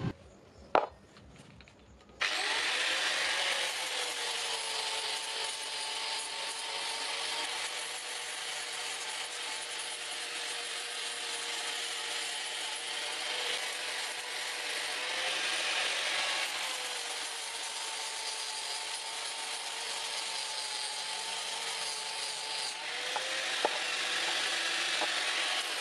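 Handheld angle grinder with an abrasive disc switching on about two seconds in and running continuously as it grinds the welded steel hook rail, its motor whine dipping slightly now and then as it is pressed into the metal.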